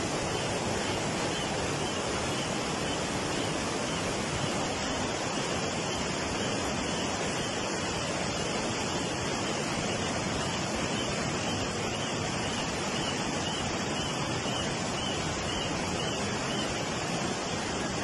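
Flash-flood torrent of muddy water rushing down a street, a steady rushing noise with no let-up.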